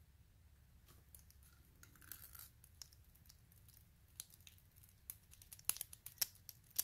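Faint small metal clicks and ticks of a pointed hand tool and tiny lock pins handled over a pin tray, with a quick run of sharper clicks near the end.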